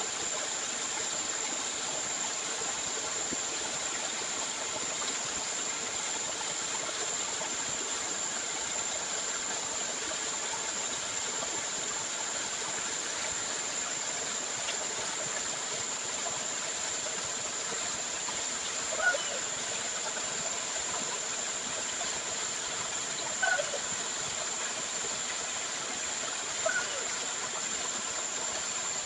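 Grey gold-ore slurry pouring steadily out of two discharge pipes into a concrete pit as the leaching tanks are emptied: a continuous rush of water with a thin, steady high whine behind it. Three short chirps stand out in the second half.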